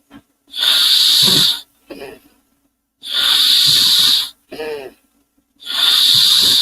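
A person imitating a steam engine with their mouth: loud, breathy hisses about a second long, each followed by a short voiced hoot that bends in pitch, repeating about every two and a half seconds.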